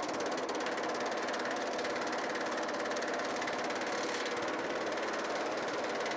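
Homemade steel-frame power hammer running steadily, its dies striking an aluminum panel in a rapid, even stream of blows as the panel is planished smooth.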